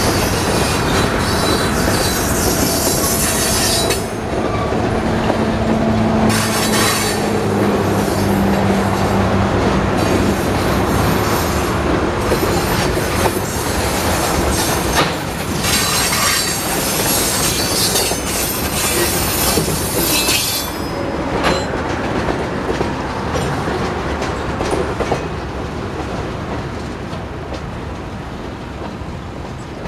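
Freight cars of a slow train rolling past: covered hoppers and a tank car, their steel wheels rumbling on the rails with spells of high-pitched wheel squeal. The sound fades over the last several seconds as the end of the train moves away.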